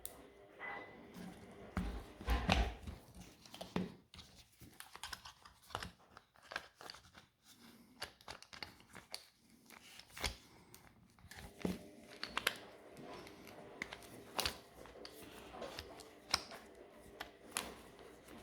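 Irregular clicks, taps and rustles of the plastic housing, screws and small parts of a cordless impact driver being handled and fitted together by hand, with a cluster of louder knocks about two to three seconds in.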